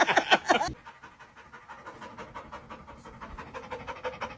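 A dog panting quickly and evenly. The panting is loud for under a second, then continues much softer.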